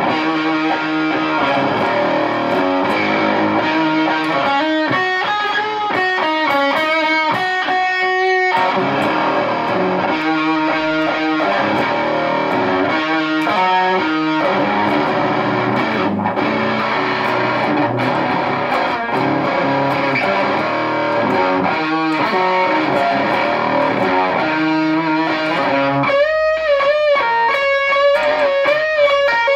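Electric guitar through a Visual Sound Angry Fuzz pedal into a Peavey Bandit 112 combo amp, playing fuzzed lead lines: held notes mixed with quick runs, and held notes shaken with wide vibrato near the end.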